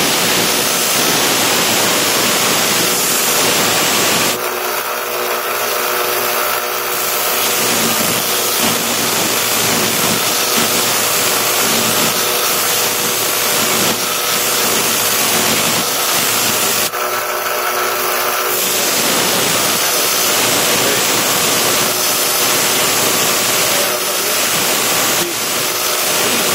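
Belt grinder running with a steel bayonet blade held against the heavy-duty abrasive belt, giving a loud, steady hissing grind over the hum of the motor. The grinding eases off briefly about four seconds in and again about seventeen seconds in, as the pressure on the blade changes.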